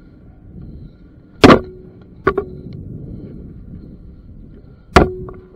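Airsoft gun fired close to the microphone twice, a few seconds apart, each a sharp crack with a short ringing tail; a lighter click comes soon after the first.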